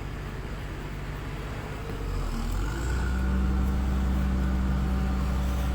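A motor vehicle's engine running steadily, growing louder about two and a half seconds in.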